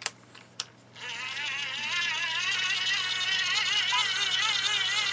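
Hand-crank dynamo of an emergency flashlight-radio whirring as it is cranked to charge a phone. A couple of clicks come first, then about a second in a steady whine starts whose pitch wavers up and down with the turning of the crank.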